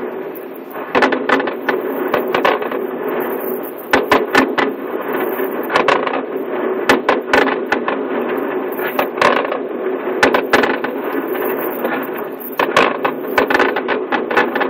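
Aerial fireworks bursting: a string of irregular sharp bangs and crackles over a steady noise.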